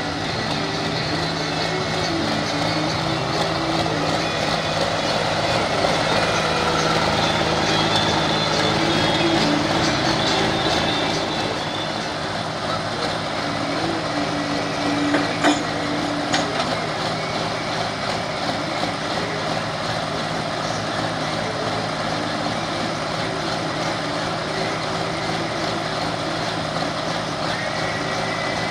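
Minneapolis-Moline pulling tractor's Cummins diesel engine running steadily at low speed after its pull, with a couple of brief knocks about fifteen seconds in.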